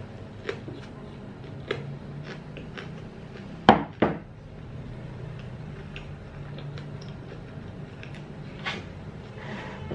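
Close-miked chewing and small mouth clicks from eating a fresh rice-paper spring roll with shrimp and pork. About four seconds in, two sharp knocks of tableware being handled stand out, the loudest sounds here. A low steady hum runs underneath.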